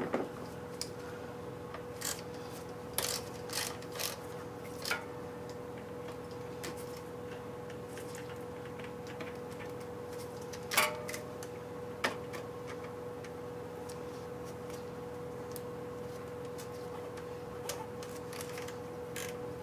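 Scattered clicks and knocks of hand tools working on a moped's metal parts while something is tightened, the loudest about eleven seconds in, over a steady hum.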